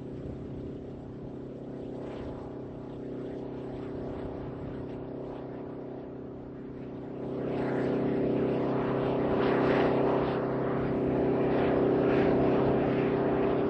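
Large recovery-convoy truck's engine running, a steady drone that grows clearly louder about seven seconds in as the truck pulls up close to the landed orbiter.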